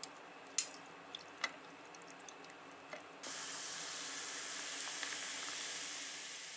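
Liquor poured over ice in a stainless steel tumbler, the ice giving a few sharp cracks and clicks in the first second and a half. About three seconds in, carbonated soda water starts pouring in and fizzes with a steady hiss that fades near the end.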